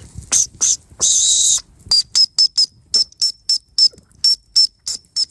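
Small homemade emergency whistle built into a ferro rod striker, blown in a quick string of short, shrill toots at one steady high pitch, about three to four a second. It opens with a few breathier blasts, one of them longer, about a second in.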